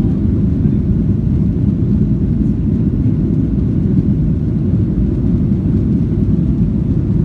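Steady, loud low rumble of an airliner in flight heard from inside the passenger cabin: engine and airflow noise.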